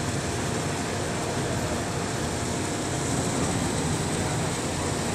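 Steady mechanical drone with hiss from offshore platform and crane machinery, even and unbroken.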